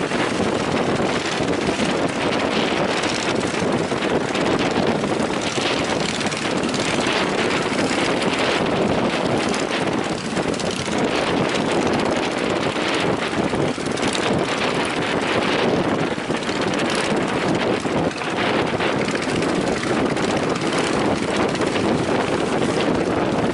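Strong wind and sea waves: a loud, steady rushing noise without pauses.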